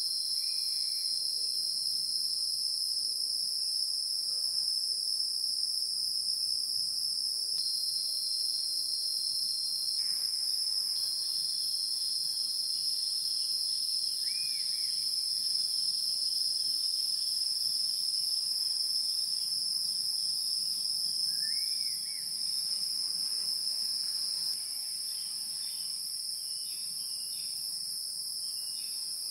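Steady, shrill chorus of insects, an unbroken high drone that drops a little in level near the end, with a few faint short chirps.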